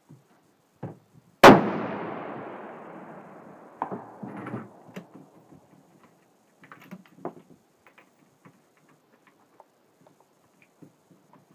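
A single rifle shot from a .338 Remington Ultra Magnum, a sharp loud report about a second and a half in that rolls away in a long echo over about two seconds. Smaller clicks and knocks follow.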